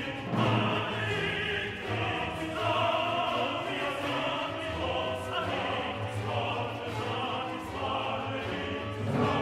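Classical choral music: voices singing long held notes over an orchestral accompaniment.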